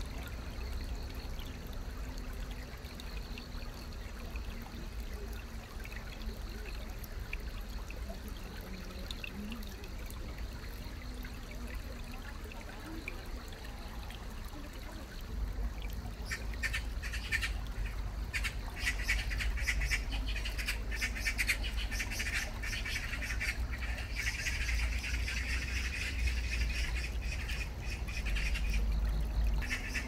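Shallow stream trickling over pebbles. About halfway in, birds start chirping rapidly and go on to the end, over a low rumble.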